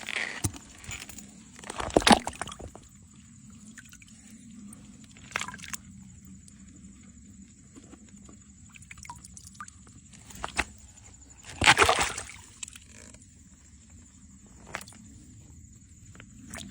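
Shallow stream water sloshing and splashing as hands rummage among stones in it, with two louder splashes, about two seconds in and near twelve seconds, and a few lighter ones between.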